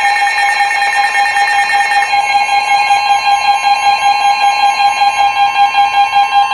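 Several weather radios sounding their alert alarms at once, steady high-pitched tones overlapping with a pulsing beat, over the NOAA Weather Radio warning alarm tone. One of the tones drops out about two seconds in. The alarms signal an incoming severe thunderstorm warning.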